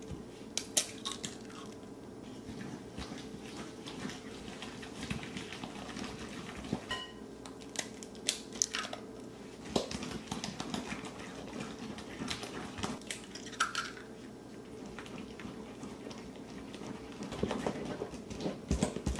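Silicone spatula working butter and sugar in a glass mixing bowl: soft squishing strokes with irregular clinks and scrapes against the glass, over a faint steady hum.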